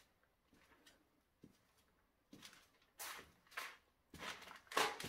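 Footsteps walking along a hard floor covered with loose paper sheets, about seven steps at an even walking pace, the later ones louder.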